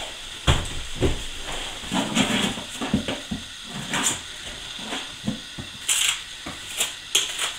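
Trowel scraping and knocking as thick mortar is buttered onto the sides of a glass block, a run of irregular scrapes and taps with a few sharper hissing scrapes.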